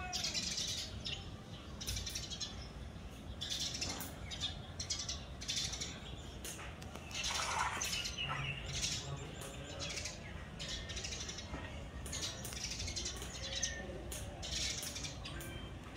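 Birds chirping in short, repeated bursts every second or so, over a steady low outdoor hum.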